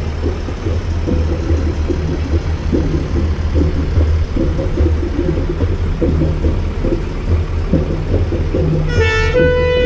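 Vintage fire engine's engine running with a steady low rumble as it drives slowly past close by. About nine seconds in, music with held notes starts up.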